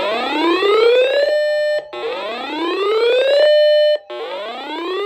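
Weather alert radio's siren alarm: a rising whooping tone that climbs for over a second, holds briefly, then cuts off, repeating about every two seconds. It is the radio's signal that a new warning has been received.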